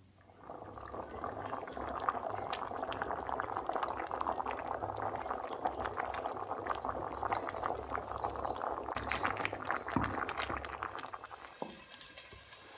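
Water with chunks of potato boiling hard in a metal pot, a steady bubbling full of small pops. The bubbling fades about eleven seconds in.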